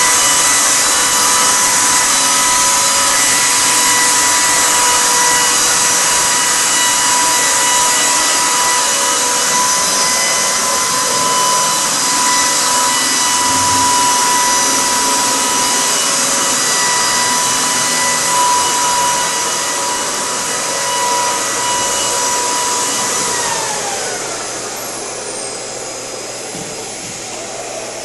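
A high-speed electric motor running with a steady whine over a strong rush of air. About 23 seconds in, the whine falls in pitch as the motor winds down, and the sound grows quieter.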